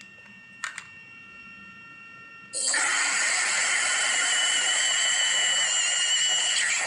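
A quiet stretch with a faint click, then about two and a half seconds in a sudden loud, steady hiss with a thin high whistle in it, like escaping steam or a jet blast.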